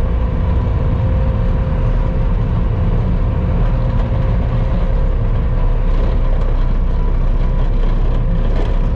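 Vehicle engine running steadily while driving, with a constant low rumble and a steady whine.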